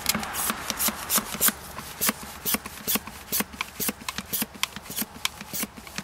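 Pela hand-operated oil extractor being pumped up to build vacuum: a steady run of short, sharp plunger strokes, about three a second.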